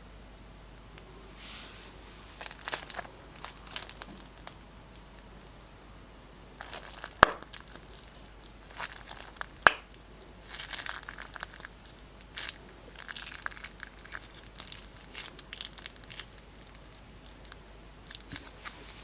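Slime and plastic piping bags being handled, crinkling and crackling in short irregular bursts, with two sharp clicks about 7 and 9.5 seconds in.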